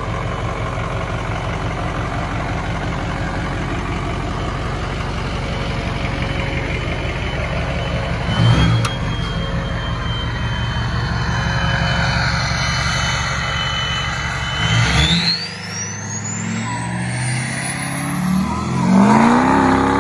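Ford 6.0 Powerstroke turbodiesel V8 with a 10-blade KC turbo, idling with an even low rumble. After a short blip of the throttle, a steady high turbo whistle comes in. About three-quarters of the way through, the whistle climbs steeply in pitch as the turbo spools up, and near the end the engine revs up and grows louder.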